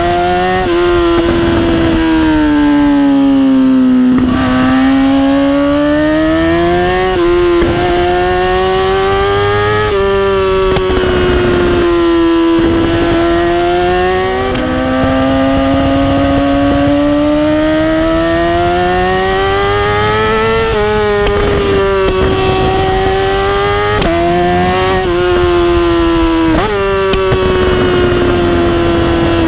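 2010 BMW S1000RR's inline-four engine through an Austin Racing exhaust, ridden hard. The revs climb and fall over and over, with sudden drops in pitch at the quickshifts and deceleration, and brief exhaust pops and crackles at several of the changes.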